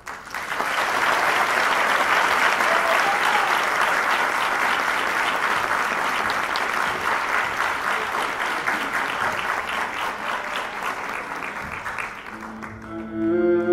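Audience applauding, starting suddenly and fading near the end as live instrumental music begins.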